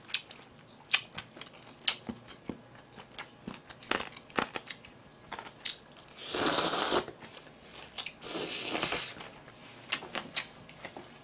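Close-up eating sounds: wet mouth clicks and chewing throughout, and two loud slurps of makguksu buckwheat noodles, the first about six seconds in and the second, longer one about two seconds later.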